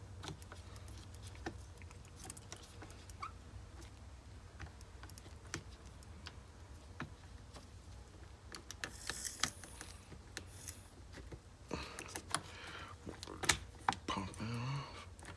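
Small scattered clicks and taps of a hex key turning screws and of metal hardware against the plastic chassis of a gas RC truck being taken apart, over a low steady hum. A brief rustle comes about nine seconds in, and the clicking and handling noise grows busier near the end.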